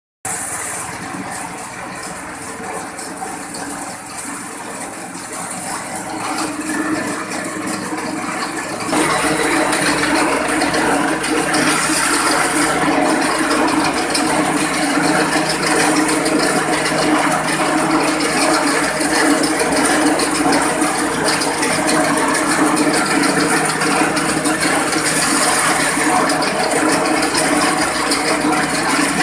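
Grass chopper machine running steadily with a dense mechanical rattle, getting louder about nine seconds in and then holding steady.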